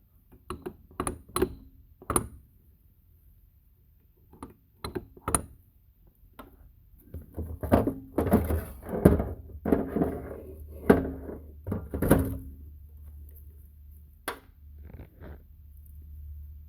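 Metal parts of a disassembled two-speed transfer case being handled and set down, giving a series of sharp clunks and clicks. The clattering is densest past the middle, with a last single knock near the end.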